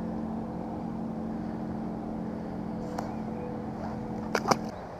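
Steady hum of a motorboat engine, cutting off abruptly near the end. A couple of short splashes and knocks about four seconds in, as a released smallmouth bass drops back into the water.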